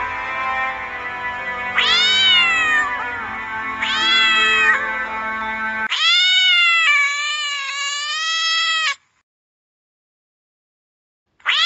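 Domestic cat meowing: two short rising-and-falling meows over a steady music bed, then, once the music stops, one long drawn-out yowl of about three seconds. A pause follows, and another meow starts near the end.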